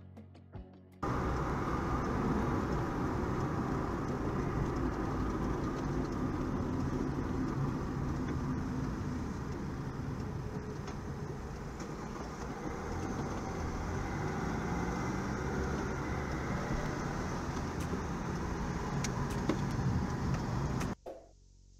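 Car driving, heard from inside the cabin through a dashcam: steady engine and road noise, with the engine note rising about two-thirds of the way through. It starts about a second in and cuts off suddenly near the end.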